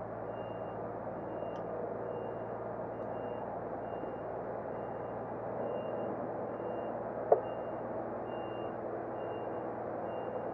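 A short high electronic beep repeating about twice a second over a steady low hum, with one sharp click about seven seconds in.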